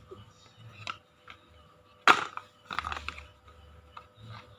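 A sharp knock about two seconds in, then a cluster of smaller clicks and rattles, over a faint steady hum.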